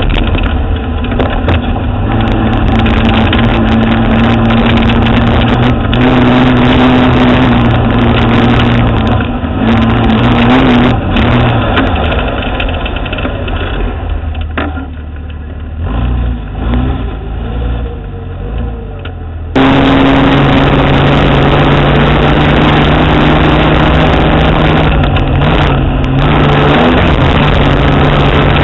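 Vehicle driving, its engine running steadily under tyre and road noise as picked up by a camera mounted under the vehicle by a front wheel. About halfway through it drops quieter and uneven for several seconds, then cuts back abruptly to the louder steady running.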